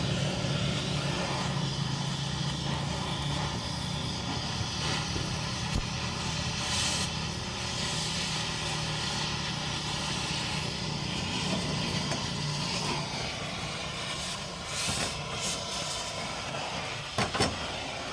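An engine running steadily with a low hum that fades about two-thirds of the way through, and a couple of sharp metallic knocks near the end.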